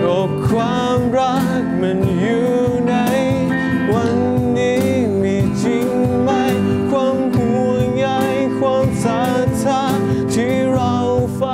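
Live acoustic band music: strummed acoustic guitar, keyboard and cajon keeping a steady beat, with a lead vocal singing a wavering, sustained melody over them.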